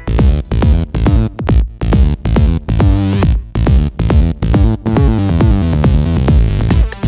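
Background electronic dance music with a steady beat of about two beats a second; a bright high layer comes in near the end.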